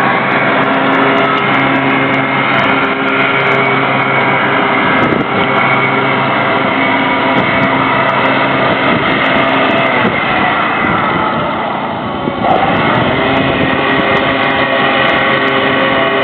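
Steady mechanical drone of heavy machinery running at a constant pitch, dipping slightly about twelve seconds in.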